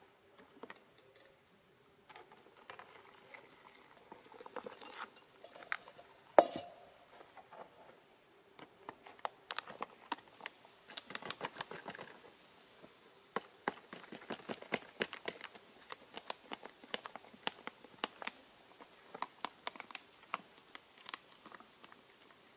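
Crinkling and a quick run of small clicks and ticks as a foil freeze-dried meal pouch is handled and seasonings are added to it. There is one louder knock about six seconds in.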